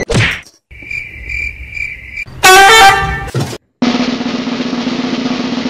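A string of added comedy sound effects: a short whoosh, a pulsing beep for about a second and a half, then a loud honk-like horn blast lasting about a second. After a brief break, a steady low hum with hiss.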